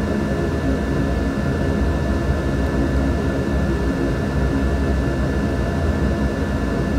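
A steady low machine hum with a thin, high-pitched whine held over it. The level does not change and there are no distinct events.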